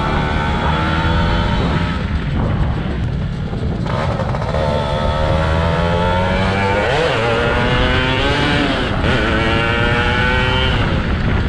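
Yamaha F1ZR's two-stroke engine running under way. Its pitch climbs steadily as it revs, then drops back and climbs again several times as it is shifted up through the gears. Wind rushes on the microphone.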